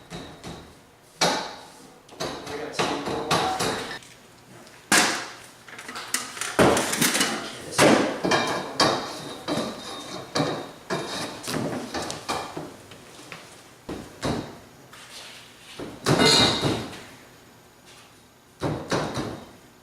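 Irregular knocking and clanking of steel roll-cage tubes being handled, tapped and fitted together, some hits louder than others.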